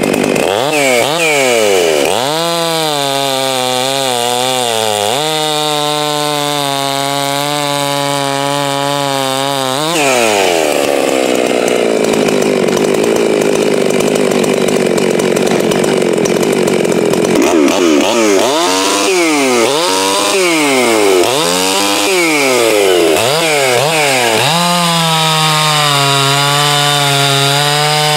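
Farmer Jones MS660-clone two-stroke chainsaw on a test run, revved up and down in quick blips and held at high revs. About ten seconds in it cuts into a log, the engine pitch sagging under load. It then goes back to a run of blips and a steady high-rev stretch near the end.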